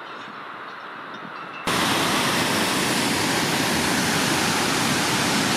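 Steady rush of a waterfall, fainter at first. About two seconds in it jumps abruptly to a much louder, closer rush of water cascading over rocks.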